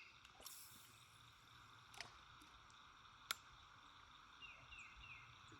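Near silence with a faint steady hiss, broken by two sharp clicks about two seconds in and just past three seconds, and a bird's quick run of three or four falling chirps near the end.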